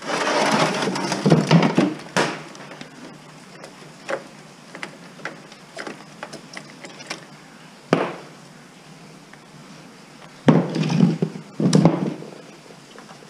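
Metal and plastic parts of a desktop computer case clattering and knocking as it is taken apart by hand: a burst of rattling at the start, scattered clicks, a single knock about eight seconds in, and another burst of clattering near the end.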